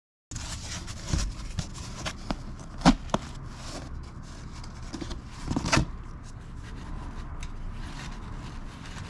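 Scattered metal clicks and knocks of hand tools on the bolts and cam support plate of a Harley-Davidson Twin Cam 96 engine, with the sharpest knocks about three and six seconds in.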